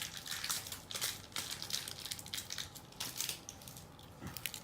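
Plastic packaging crinkling and rustling in short, irregular crackles as Beyblade parts are unwrapped by hand.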